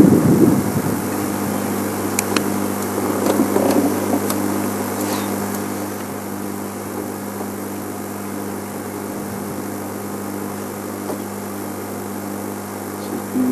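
Game-drive vehicle's engine idling with a steady low hum, louder and rumbling in the first second, then settling.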